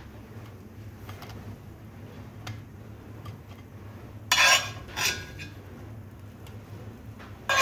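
Kitchen handling sounds: dishes and cutlery clinking and clattering, with two short loud clatters about four and a half and five seconds in, over a low steady hum.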